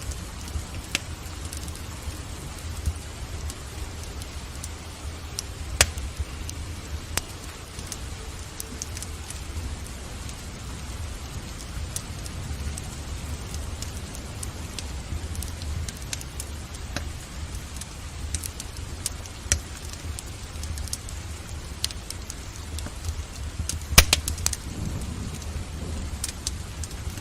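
Wood fire in a fireplace crackling, with scattered sharp pops and a cluster of louder pops near the end, over a steady hiss of rain and a low rumble.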